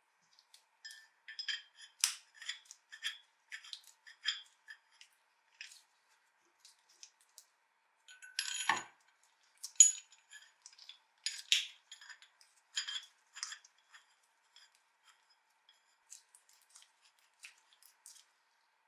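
Steel parts of an old adjustable wrench clicking and clinking together as its jaws are fitted onto the threaded shaft by hand. There is a short scrape about eight seconds in and a sharper clink just after it.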